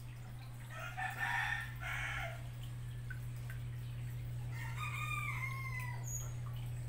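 A rooster crows twice, about a second in and again near five seconds, the second crow falling in pitch at its end. Under it runs the steady low hum of the aquarium's submersible pump.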